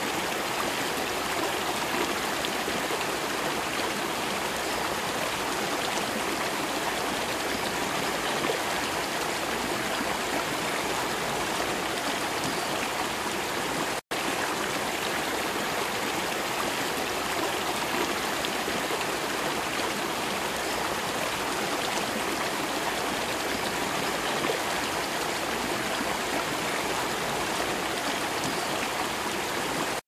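Shallow river gurgling and rushing steadily over rocks and small rapids. The sound cuts out for a split second about halfway through.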